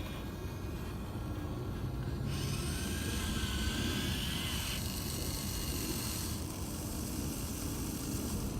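Small electric motors and gearboxes of a Huina 1580 RC excavator whining as its arm and bucket move, in stretches that start and stop, the whine rising slightly in pitch partway through.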